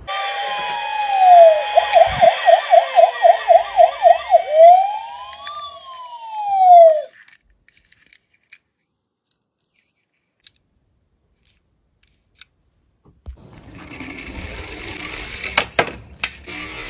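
Police siren: several siren tones layered, a fast warbling yelp followed by slow rising and falling wails, stopping abruptly about seven seconds in. After a few seconds of near quiet, a toy minicar rolls and scrapes on a plywood board with a run of clicks and clatters near the end.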